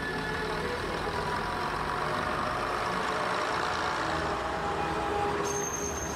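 Diesel multiple unit's engine running steadily as the train pulls away.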